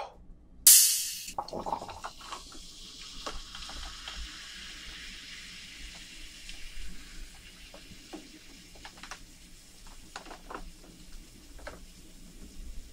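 Cola poured from a plastic bottle into a tall glass: a steady fizzing hiss with small splashes and pops as the foam rises. A short, loud hiss about a second in, typical of the carbonation escaping as the bottle cap is twisted off.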